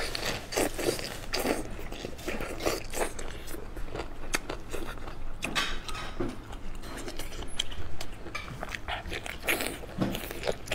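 Someone biting and chewing sauced chicken feet: a string of short, irregular crunchy clicks and mouth sounds.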